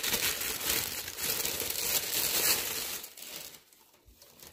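Thin plastic bag crinkling and rustling as a power supply is slid out of it by hand. The crinkling stops about three seconds in.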